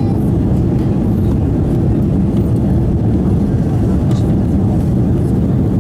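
Steady deep cabin noise inside an Airbus A340-300 climbing after takeoff: the drone of its four CFM56 turbofan engines and rushing airflow, even and unbroken.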